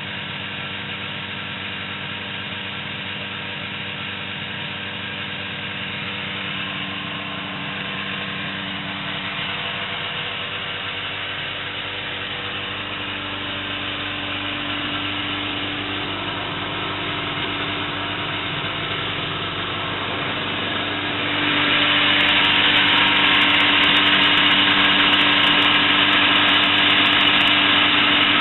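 Ski-Doo snowmobile's fan-cooled two-stroke engine idling steadily. It grows louder and harsher about three-quarters of the way through, heard up close with the hood open.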